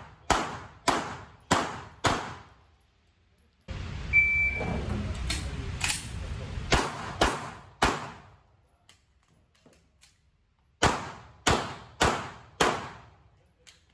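Glock 19 9mm pistol shots echoing on an indoor range, fired in three quick strings of four or five shots about half a second apart. A short shot-timer beep about four seconds in starts the second string.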